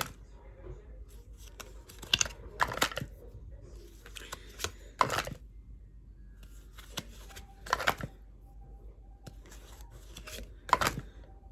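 Tarot cards being handled and shuffled through by hand: about five short, crisp card-and-paper rustles and slides, spaced a few seconds apart.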